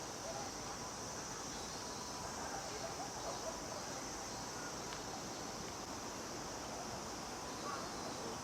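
Cicadas calling in a steady, continuous high-pitched buzz, over a low outdoor rumble.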